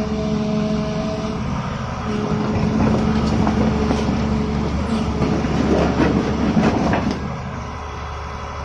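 Volvo EC210 crawler excavator's diesel engine running steadily, with a stretch of irregular metallic clanking and rattling in the middle.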